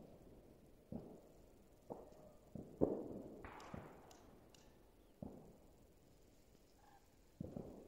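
Distant New Year's fireworks: about five scattered dull bangs a second or more apart, each dying away briefly, the loudest about three seconds in.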